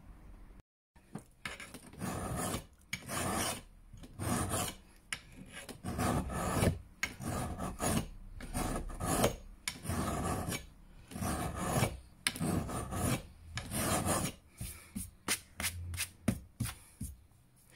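Second-cut hand file rasping across the steel edge of a Hultafors HY20 felling axe, in repeated strokes roughly one or two a second, thinning the bevel behind the cutting edge; the hard axe steel makes it slow work.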